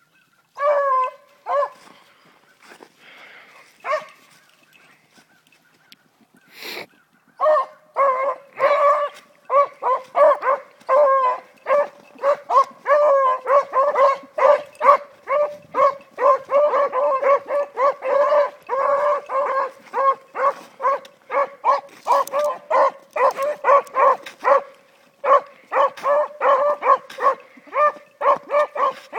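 Beagle baying on a scent trail: a few single calls at first, then from about seven seconds in a fast, nearly unbroken run of barks, two or three a second.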